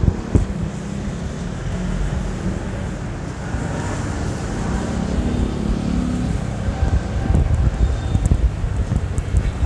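City street traffic: vehicle engines and tyres passing, with wind buffeting the microphone. An engine hum swells about five seconds in.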